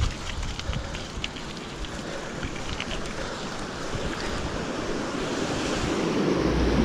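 Wind rushing over the microphone during a mountain-bike ride on a hardtail, growing steadily louder as the bike picks up speed, with a few sharp clicks and rattles from the bike in the first three seconds.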